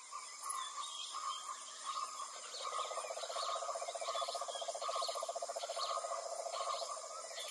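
Rainforest ambience: birds chirping, with one call repeating about every three-quarters of a second, and a fast pulsing trill joining in about two and a half seconds in.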